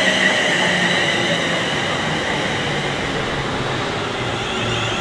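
London Midland Class 350 Desiro electric multiple unit running along the platform, with steady wheel-and-rail noise and a high whine over it.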